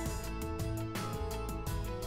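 Instrumental background music with held notes over a sustained bass line.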